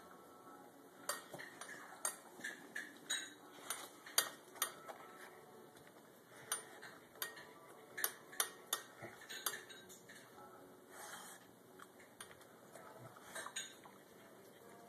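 Dog eating from its food bowl: irregular clinks and clatters as its muzzle and teeth knock against the bowl, coming in clusters with short pauses.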